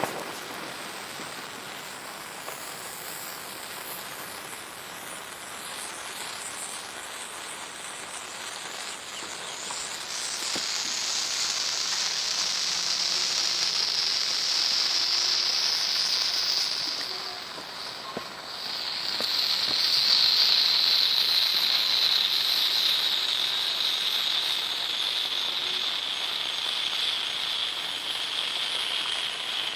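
A fountain firework spraying sparks with a steady hiss that grows louder about ten seconds in, drops away briefly around eighteen seconds, then surges back at its loudest and slowly lowers in pitch.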